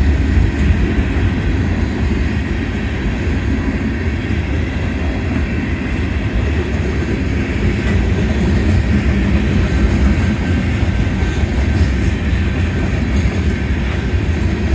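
Freight cars of a Union Pacific manifest train rolling past a grade crossing: a steady, loud low rumble of steel wheels on rail.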